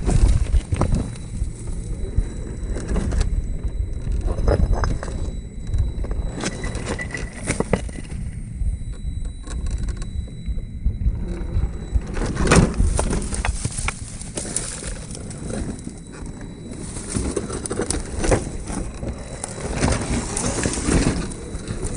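Small electric RC rock crawler driving over rough dirt and stones: a steady run of crackles, clicks and crunches from the tyres and chassis, with a constant low rumble underneath.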